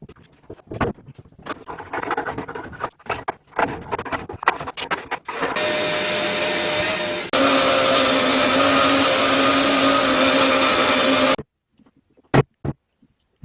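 Woodworking on red oak: first a tool scraping or rubbing on the wood in uneven strokes, then a power tool running steadily with a whine for several seconds. It cuts off suddenly near the end, leaving a couple of sharp knocks.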